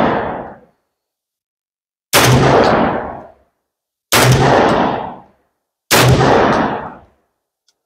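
12-gauge shotgun fired three times, about two seconds apart, each blast fading out over about a second. The tail of an earlier shot is dying away at the start.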